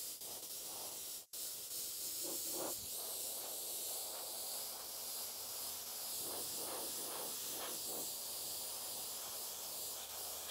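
Gravity-feed airbrush spraying: a steady hiss of air and paint, cutting out for an instant about a second in.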